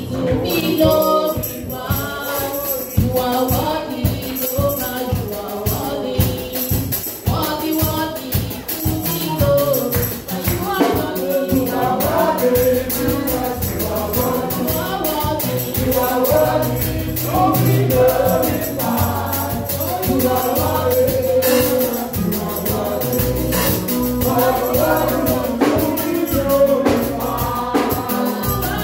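Live gospel praise music: a choir singing, with tambourine and drums keeping a steady beat over a bass line.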